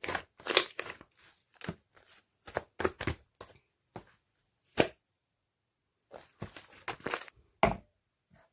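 A series of irregular short clicks and taps, some with a brief rustle after them, with a pause of about a second in the middle.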